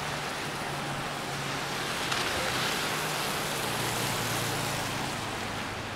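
Traffic on a rain-wet street: a vehicle passes with its tyres hissing on the wet road, the hiss swelling about two seconds in and easing off by about five seconds, over a low steady engine hum.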